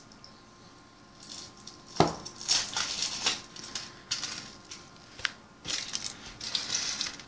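Foil wrapper of a Kinder Surprise chocolate egg crinkling as it is peeled off and crumpled by hand, in a series of rustling crackles that start sharply about two seconds in.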